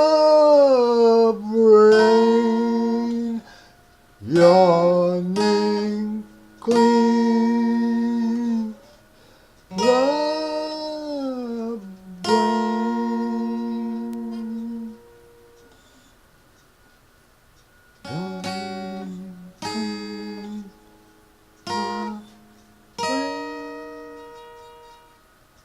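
Music: a voice singing wordless, drawn-out notes in separate phrases with short pauses between them, several notes sliding up into pitch before being held. The last few notes are shorter and fade away.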